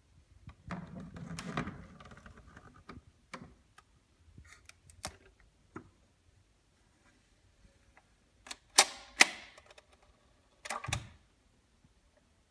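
Mechanical clicks and knocks as an ELAC Miracord 50 H II turntable is handled and its controls and tonearm are worked. Light handling rustle and taps come first, then two loud sharp clicks about nine seconds in, and a duller knock about two seconds later.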